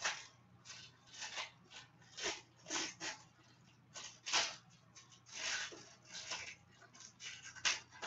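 Trading cards being handled and slid over one another: about a dozen short, irregular papery swishes.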